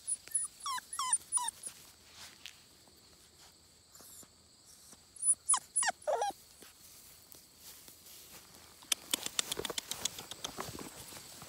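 A Bernedoodle puppy whimpering in short, high, squeaky cries: a cluster just after the start and another about five to six seconds in, the last one falling in pitch. Near the end there is a quick patter of soft ticks, footsteps in the grass.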